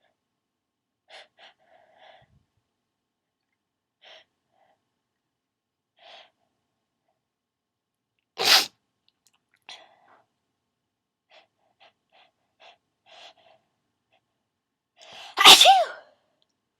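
A person sneezing twice during a sneezing fit, with short gasping breaths between. The second sneeze, near the end, is louder and longer, with a pitch that bends.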